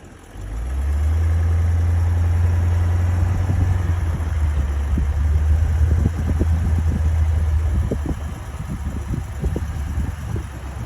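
A four-wheel-drive vehicle driving off-road. A steady low engine drone comes in just under a second in and eases off about eight seconds in, with irregular thumps and knocks from about five seconds on.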